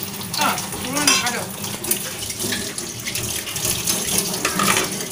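Tap water running in a steady stream into a stainless steel sink as dishes are rinsed under it, with a few light knocks of the dishes.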